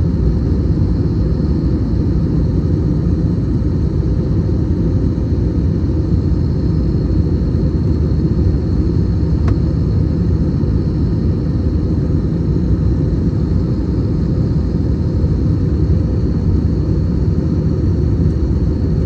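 Steady low cabin roar of an Airbus A321 in its climb, engine and airflow noise heard inside the cabin, with a faint high whine running through it. One faint click about halfway through.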